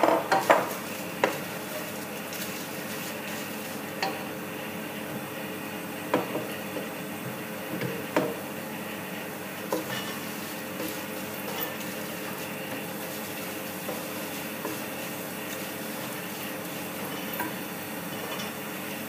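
Wooden spoon stirring fried onions in hot oil in a non-stick pot, knocking against the pan now and then over a steady sizzle. The knocks are loudest and most frequent in the first second, then come every couple of seconds and thin out.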